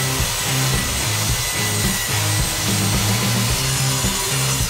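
Background music, with a power mitre saw cutting down through a thick live-edge wooden board beneath it.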